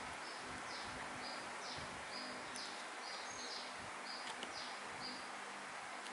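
A rapid series of short, high-pitched animal chirps, some falling in pitch, about two a second, over a steady background hiss.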